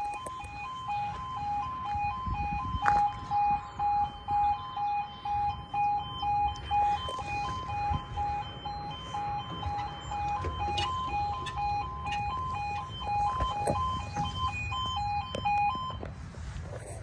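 UK level crossing yodel alarm, a loud two-tone warning that rapidly alternates between a lower and a higher pitch while the barriers come down. It cuts off about a second before the end, as the barrier is fully lowered.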